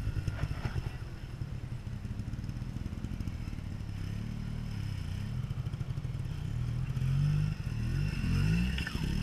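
Trials motorcycle engine running at low revs with short blips of the throttle, its pitch climbing in a few quick revs near the end as the bike works over rocks.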